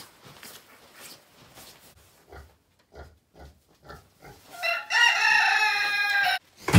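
Soft footsteps in straw, then about four and a half seconds in a rooster crows once, a long call of nearly two seconds that cuts off sharply. A loud thump comes at the very end.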